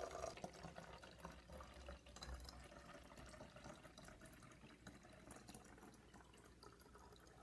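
Faint trickle of water poured from a glass jug into a plastic bottle, filling it, growing fainter toward the end.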